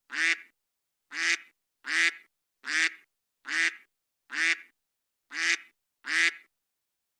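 A duck quacking: eight short, nasal quacks at an even pace, a little under one a second, which stop shortly before the end.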